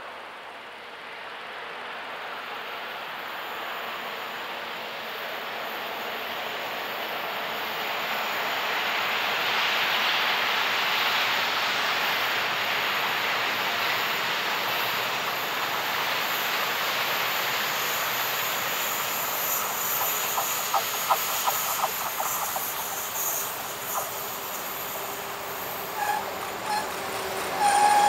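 Freight train hauled by two SNCF BB 67400-class diesel locomotives approaching, its noise growing steadily louder as it nears. Wheels click over rail joints in the last third, and a wheel squeal comes in near the end.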